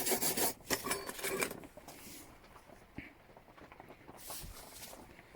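Scratchy rubbing and rustling as an old spanner is handled, loud for the first second and a half, then quieter handling noises with a single click about three seconds in.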